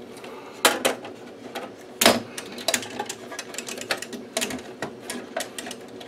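Irregular clicks and knocks of hands handling the metal chassis and meter assembly of an HP 8405A vector voltmeter, with two louder knocks, one under a second in and one about two seconds in.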